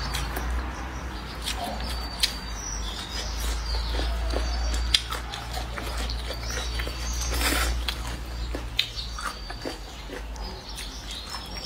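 Close-up eating sounds of a person chewing and slurping stir-fried rice noodles, with many small wet clicks and smacks and a louder slurp partway through.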